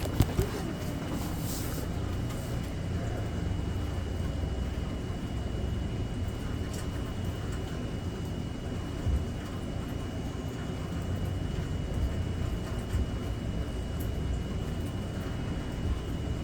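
Steady rainy outdoor ambience: a low rumbling wash with a fainter hiss over it and a few faint ticks, plus a thin steady high whine throughout.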